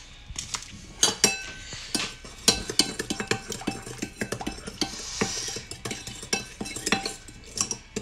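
Metal spoon stirring a thin seasoning sauce in a ceramic bowl, clinking and scraping against the sides in quick, irregular strikes, each with a brief ring.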